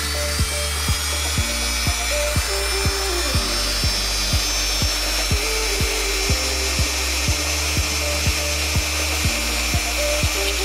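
Handheld rotary tool with a small cutoff disc running at a steady high-pitched whine while cutting a black plastic part held in a vise. Background music with a steady beat of about two strikes a second plays underneath.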